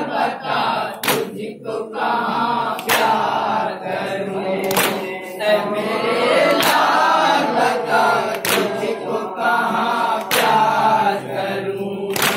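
A group of male voices chanting a Muharram mourning lament in unison, with loud hand strikes on the chest (matam) in time with the chant about every two seconds.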